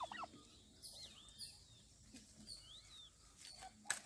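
Small birds chirping now and then, with a short call from a turkey right at the start. Near the end comes a single sharp snap as a kolinji fruit is pulled off its tough stem.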